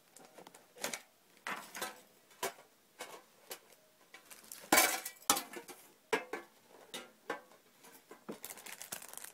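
Metal trading-card tin being handled and opened: a string of irregular clinks and knocks, the loudest a little under five seconds in.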